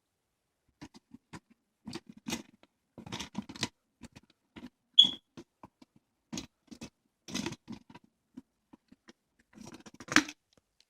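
Small plastic toy pieces and their packaging being handled: irregular clicks, taps and scrapes, with one louder sharp click about five seconds in.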